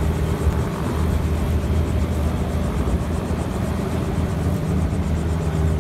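Small tour helicopter running on the ground, giving a steady low engine hum.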